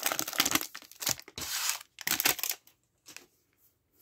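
Plastic trading-card cello-pack wrapper crinkling and rustling as it is handled and torn, in quick dense rustles that stop about two and a half seconds in.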